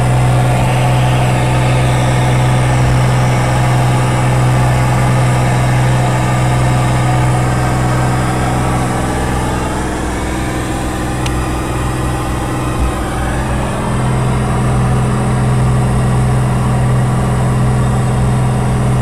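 Lancair IV-P's engine and propeller drone steadily inside the cabin during the climb after takeoff, with a slight dip in level around the middle.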